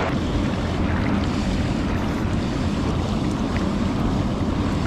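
Steady rushing noise of flowing stream water, mixed with low wind rumble on the microphone.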